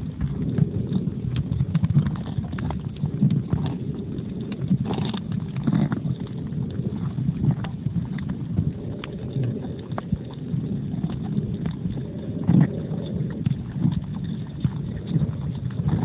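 Muffled underwater noise picked up by a phone sealed in a plastic waterproof pouch while snorkeling: a dense, steady low rumble of moving water with many small clicks and crackles throughout.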